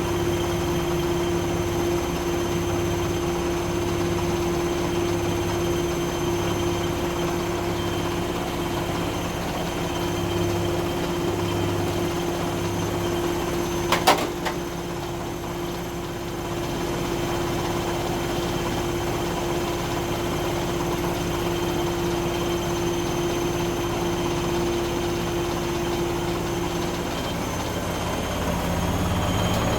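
Zanussi ZE 16 washing machine spinning with an extremely unbalanced load: a steady motor whine over a low throb that pulses about once every second and a half. A single sharp knock comes about halfway through, and the motor tone shifts near the end.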